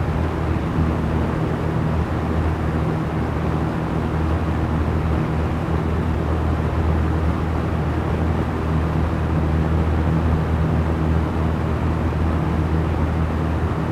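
Small electric fan running steadily: a low, even hum of the motor under a constant rush of air, with no change in speed.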